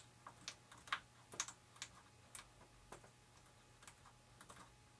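Light, irregular clicks and taps of hands working an RC model airplane's elevator linkage and servo horn, coming less often toward the end.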